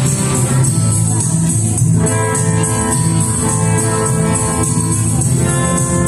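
Live music from an electric guitar and an acoustic guitar playing together through a small PA sound system, with steady held chords.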